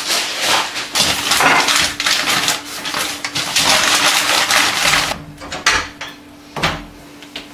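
Cups and crockery clinking and scraping as they are wiped with sheets of paper at a kitchen sink, with a dense rustling clatter. Near the end a couple of separate knocks come as a door opens.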